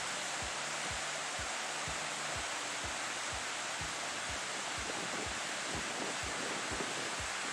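Rushing whitewater of a river, a steady hiss, with low thuds repeating about two or three times a second.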